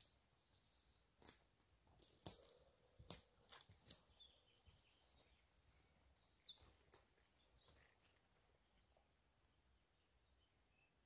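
Faint woodland birdsong: a small bird's rapid high trill about halfway through, then a thin high call note repeated every half second or so near the end. Soft footsteps and rustles of someone walking on the woodland floor come earlier.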